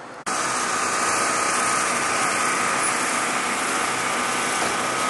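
A car engine running loud and steady, with a steady high whine over it; it starts abruptly just after the beginning.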